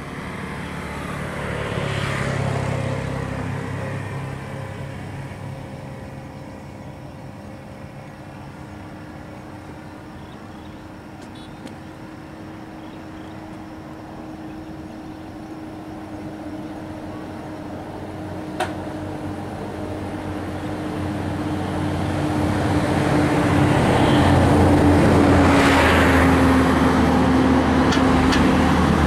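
Vehicle engines running outdoors: one vehicle swells and passes about two seconds in, then an engine with a steady hum builds steadily louder through the last third.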